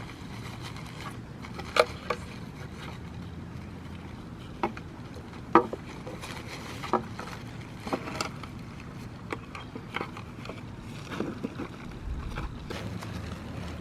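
Scattered light clicks and taps as a side mirror's wiring is fed through the door and the mirror is handled against it, over a steady low hum.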